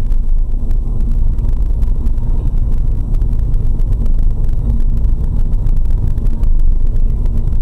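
Steady low rumble of a car's engine and tyres on the road, heard from inside the moving car's cabin, with a faint steady hum underneath.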